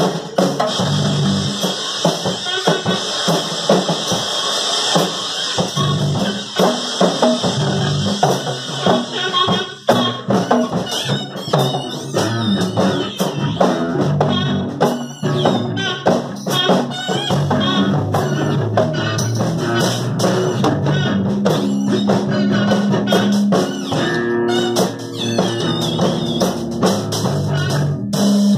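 Improvised band jam: drum kits played busily with cymbals, over a bass guitar line.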